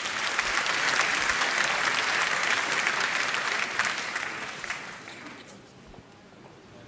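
Crowd applauding in a large arena: dense clapping that holds steady, then dies away about five seconds in.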